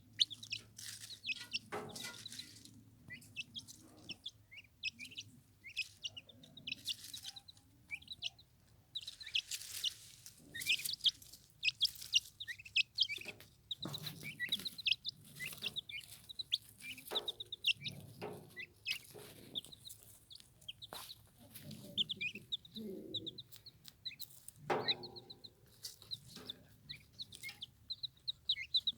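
Turkey poults peeping over and over in short, high chirps, with scattered clicks and knocks among them.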